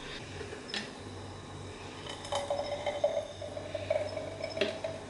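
Thick hot sauce being poured from a plastic blender jug into a glass jar, with a couple of light knocks of jug against jar. A faint steady tone comes in about two seconds in.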